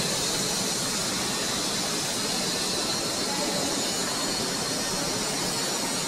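Steady rushing hiss of background noise, even in level throughout, with no distinct events.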